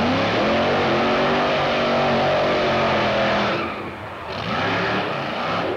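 Car engine held at high revs during a burnout, with the rear tyres spinning and squealing in the smoke. About four seconds in, the revs and level drop briefly, then climb back up.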